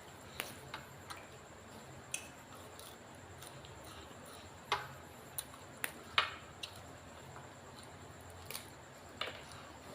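Someone eating: scattered light clicks and wet smacks of chewing and handling food, with a few sharper clicks around the middle.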